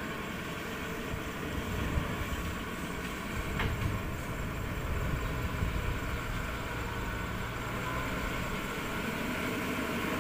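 Engine of a home-modified truck loaded with acacia logs, running steadily, with a brief click about three and a half seconds in.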